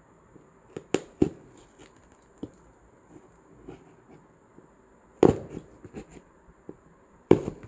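Small scissors snipping and pushing through plastic packing tape on a cardboard box. Two sharp clicks come about a second in, then two louder, longer scraping cuts, one about five seconds in and one near the end.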